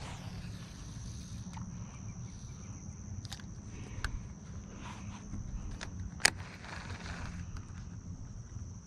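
Insects trilling steadily on one high pitch over a low outdoor rumble, with scattered sharp clicks and knocks, the loudest about six seconds in.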